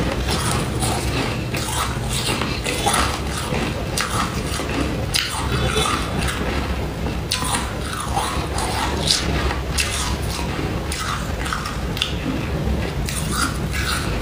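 Close-up crunching and chewing of freezer frost, with short crisp crunches coming irregularly throughout.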